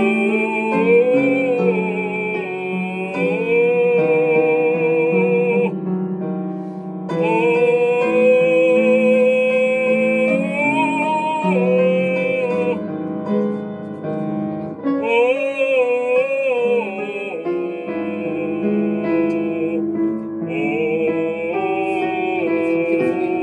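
A classical, operatic-style voice singing with vibrato over piano accompaniment, in several long phrases broken by short pauses.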